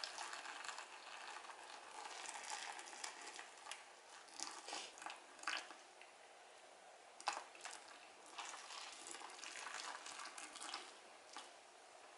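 Boiling water poured over makeup sponges coated in dish soap and olive oil: a faint hiss with scattered small crackles and clicks.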